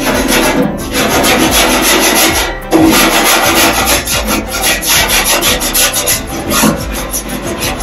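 Scraper rasping back and forth over the inside of a Traeger pellet grill's barrel, clearing greasy buildup in quick repeated strokes with a short pause about two and a half seconds in.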